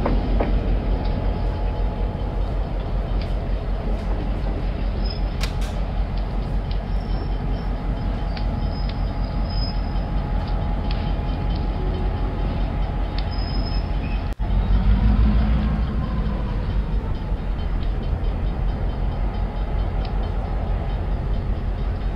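N scale model train running on the layout: a steady mechanical running noise with fast fine ticking. About two-thirds of the way in the sound cuts out for an instant, then swells louder for a moment before settling back.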